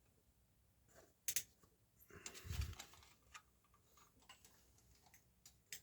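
Faint scattered clicks and a short rubbing scrape with a low bump about two and a half seconds in: a slide projector and its slides being handled.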